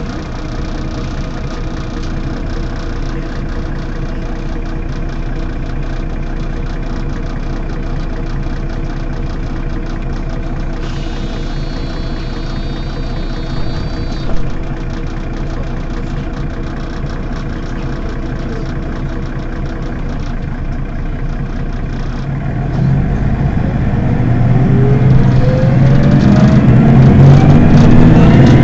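Mercedes-Benz Citaro city bus engine idling steadily. About halfway a high steady tone sounds for some three seconds and ends in a thump. Over the last several seconds the engine note climbs in pitch and grows much louder as it revs up.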